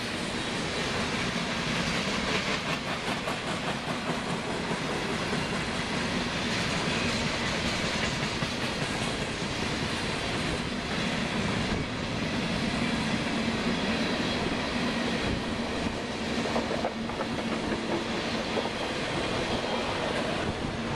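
Freight cars of a mixed manifest train rolling past close by: a steady noise of steel wheels running on the rails, with occasional clicks.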